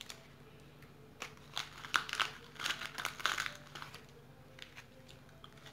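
Plastic candy wrapper crinkling as it is handled, in a quick run of crackles between about one and three and a half seconds in.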